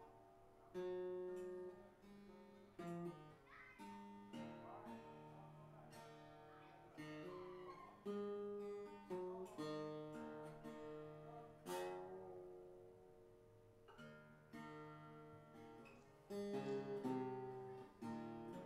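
Improvised music on a small Koa-wood acoustic guitar: plucked single notes and strummed chords at an uneven pace, each starting sharply and ringing out before fading.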